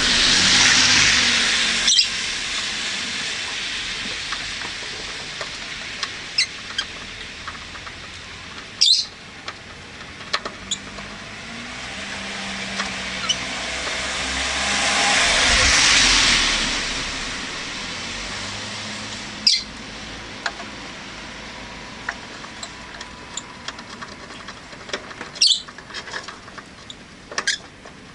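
Cars passing on the street outside, their tyre and engine noise swelling and fading away twice, once near the start and again about halfway. Rosy-faced lovebirds give short, sharp, high chirps about four times.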